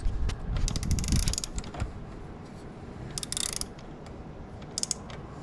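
Hand ratchet wrench clicking in three short runs of rapid clicks, loosening a bolt.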